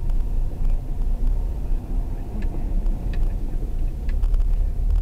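Low steady rumble of a car's engine and tyres heard from inside the cabin while driving, with a few faint scattered ticks.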